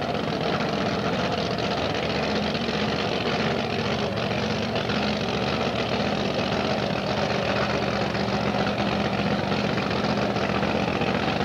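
Street machine engine idling steadily at close range, holding an even pitch.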